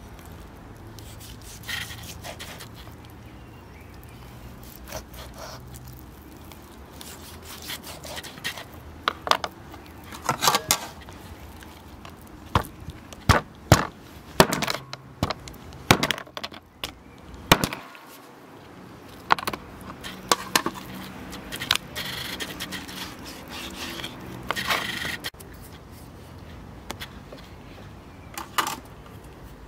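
Kitchen knife cutting up a large raw fish on a wooden cutting board: irregular knocks of the blade on the board, with cracking and scraping, busiest in the middle stretch.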